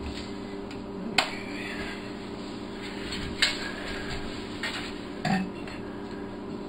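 Steady low electrical hum with two sharp clicks, about a second in and again near the middle, as the fluorescent lights are switched off.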